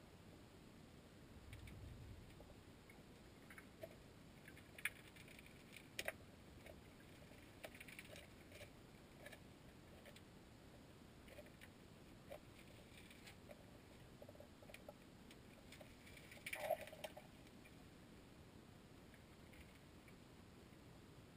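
Near silence under water in a salmon-spawning creek: faint, scattered clicks and ticks over a quiet hiss, with a small cluster of louder clicks about sixteen seconds in.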